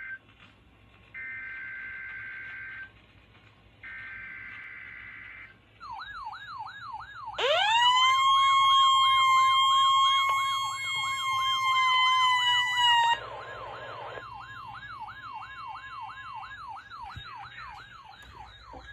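NOAA Weather Radio weekly-test alert: three short bursts of two-pitch data screech (the SAME header). Then the receivers' own warbling alert sirens start, and about a second later a loud steady alarm tone near 1 kHz slides in from below. The tone holds for about five and a half seconds and cuts off sharply, while the warbling sirens run on and fade out.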